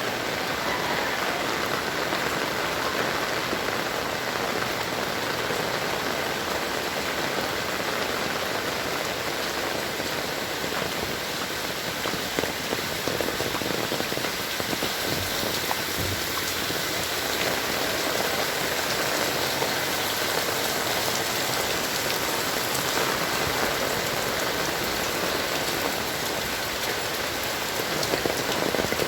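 Heavy rain falling steadily, pattering on surfaces, with now and then a sharper drip or tick.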